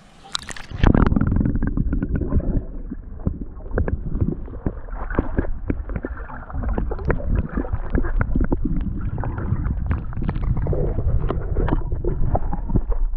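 A splash about a second in, then muffled water heard from beneath the river's surface: loud low rumbling and gurgling with many small knocks and bubbles, as a musky is released under water.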